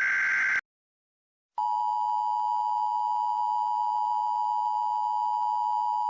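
The last of the Emergency Alert System SAME header data bursts, a buzzy stream of digital tones, cuts off shortly after the start. About a second of silence follows. Then the EAS two-tone attention signal (853 and 960 Hz together) comes on and holds steady.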